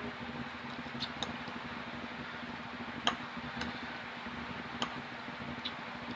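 Quiet eating sounds: a handful of small, sharp mouth clicks and taps while chewing food, over a steady low hum.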